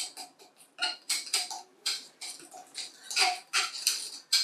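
A thin stirring tool clinking and scraping against a small glass jar in irregular quick strokes while clay-based engobe (slip) is mixed with water to a thick paste. The loudest cluster of strokes comes about three seconds in.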